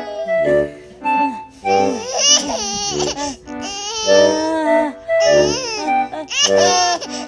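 Background music with a steady beat, over a baby's high-pitched laughing in several bursts.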